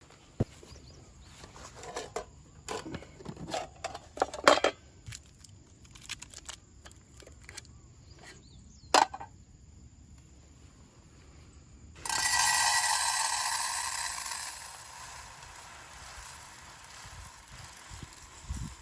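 Scattered light clicks and knocks of things being handled, then about twelve seconds in a sudden rushing hiss that fades over a few seconds.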